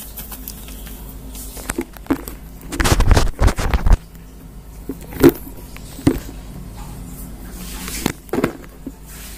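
Scattered knocks and handling noises, with a louder rumbling stretch about three seconds in.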